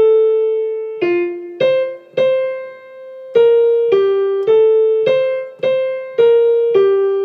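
Piano playing a single-line choral part in the middle register, one note at a time: about eleven struck notes, each decaying before the next.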